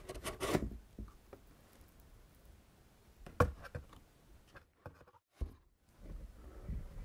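Cardboard packaging being handled: a card insert slides and rubs against the box in the first second, with a sharp knock about three and a half seconds in. Softer rustling follows near the end.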